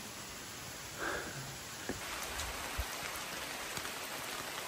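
Rain falling on wet rainforest foliage: a steady hiss with scattered drop ticks, getting denser from about two seconds in. There is a brief soft noise about a second in.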